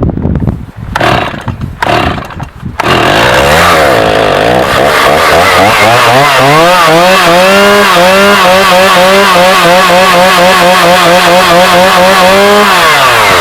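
Stihl MS-310 two-stroke chainsaw. It runs unevenly with a few knocks for the first few seconds, then revs up to full throttle and holds a high, steady scream for several seconds, dropping off near the end.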